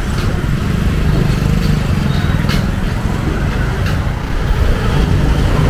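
Road traffic: a steady low engine-and-tyre rumble from passing vehicles, with a few short sharp sounds over it.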